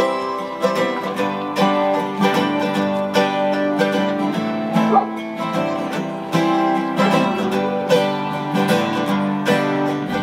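Acoustic plucked-string instruments playing a picked tune, with a quick run of ringing notes over steady chords.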